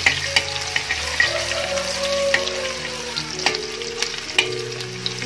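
Chopped ginger sizzling in hot sesame oil in a metal kadai while a steel ladle stirs it, with sharp clicks now and then.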